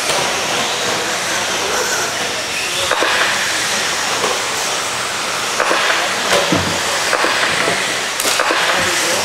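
Radio-controlled stadium trucks racing on a dirt track: a steady hissing whine of motors and tyres on the dirt, with a few sharp knocks of trucks landing or hitting the track border.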